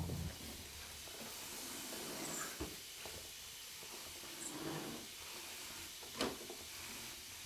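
Quiet room tone with a steady hiss and a few faint knocks or clicks, the loudest about six seconds in.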